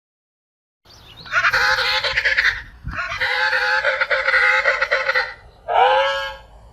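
A penguin calling: three loud braying calls. The first two each last about two seconds; the third, near the end, is shorter and rises then falls in pitch.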